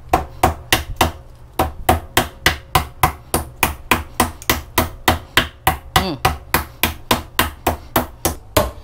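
Metal meat tenderizer mallet pounding a slice of raw pork neck on a wooden chopping board, a steady run of blows about four a second, flattening the meat to make it tender.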